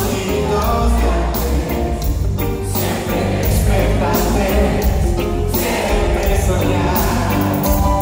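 Reggae band playing live: a male lead singer sings over electric guitar, drums and a heavy bass line, heard from within the audience in a large hall.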